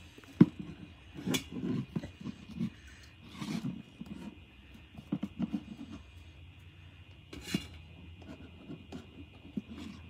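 Scattered small clicks, taps and rubbing of cotton swabs working in a stainless steel bowl of milk, with light handling noise; the sharpest click comes about half a second in and another about three-quarters of the way through.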